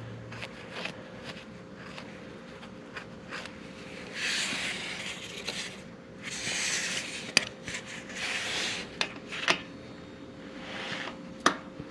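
Excess oil being wiped up around a motorcycle's oil drain plug: several rubbing, wiping strokes with a few sharp clicks, over a faint steady hum.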